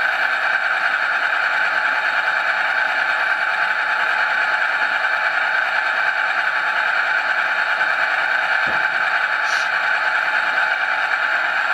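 Sound decoder of an HO scale SDF40-2 model locomotive playing its EMD diesel prime mover sound through a small speaker, running steadily in throttle notch 3 while the model is held in place. The decoder is an ESU LokSound Select with a single 28 mm speaker.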